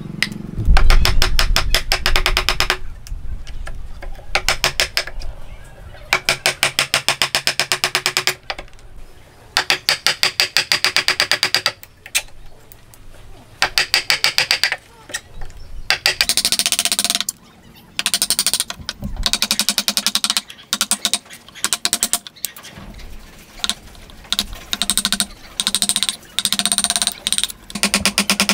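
Steel wood chisel cutting into a timber joint: bursts of rapid, evenly spaced clicks, each a second or two long, with short pauses between them. A low thump comes about a second in.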